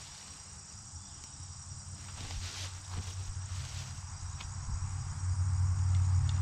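Insects trill steadily in the background while a stiff, partly thawed deer hide is pulled open and flipped over a fleshing beam, with brief rustles in the first half. A low hum grows louder through the second half and ends as the loudest sound.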